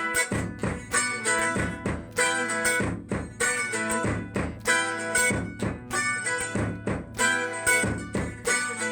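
Acoustic guitar strumming in a steady rhythm with a percussive beat: the instrumental opening of a song, before the singing comes in.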